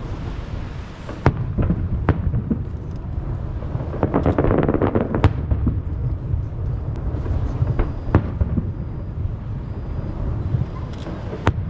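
Fireworks bursting over the sea: deep booms that echo back off the surrounding hills, sharp single reports, and a dense run of crackling about four to five seconds in.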